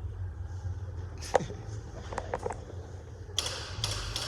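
Telegraph key tapped out in Morse code: a sharp click about a second in, a few lighter clicks, then a quick run of rapid clicking near the end, over a steady low hum.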